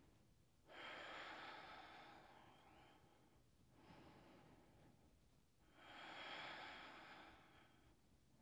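Faint slow breathing from a person holding a yoga pose: two long, airy breaths about five seconds apart, with a softer breath between them.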